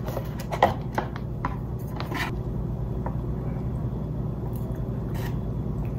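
Paper lid of a Shin Ramyun cup noodle bowl peeled back and the soaking noodles stirred and lifted with wooden chopsticks to check whether they have softened: a few short rustles and clicks, mostly in the first two seconds and once more about five seconds in, over a steady low hum.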